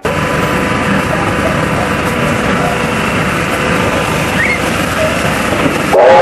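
Steady, even rumbling noise of a train running or standing with its machinery working. Right at the end a loud train whistle begins to sound.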